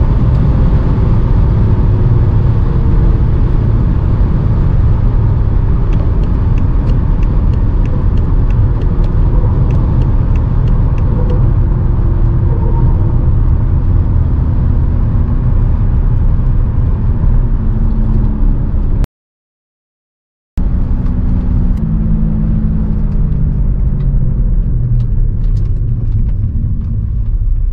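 Cabin sound of a BMW E60 with the M57 3.0-litre diesel slowing down from high speed: steady road and wind rumble, the engine's tone falling as speed and revs drop. The sound cuts out completely for about a second and a half roughly two-thirds of the way through.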